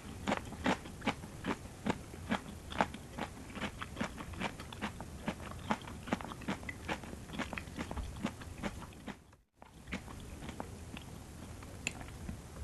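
Close-miked chewing of crunchy vegetables and rice noodle salad, with a steady run of crisp crunches about three a second. After a brief gap about nine and a half seconds in, the chewing goes on softer, with fewer crunches.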